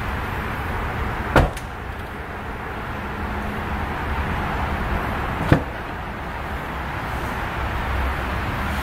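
Corvette driver door shutting with a single thump about a second and a half in, then a sharper click about four seconds later as the door is released again, over steady background noise.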